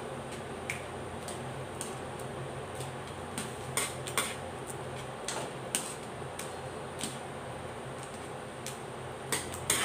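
A metal spoon stirring a thick salted-egg sauce in a steel wok as it reduces toward a sticky glaze, scraping and clicking irregularly against the pan. A steady low hum runs underneath.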